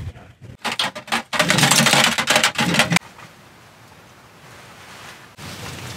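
Loud crinkly rustling for about two seconds, then a quiet, steady background hiss.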